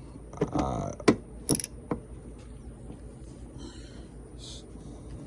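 A few sharp clicks and a brief metallic rattle in the first two seconds, from a hand tool with a T20 Torx bit being put to the screw of a car door switch; after that only faint handling noise.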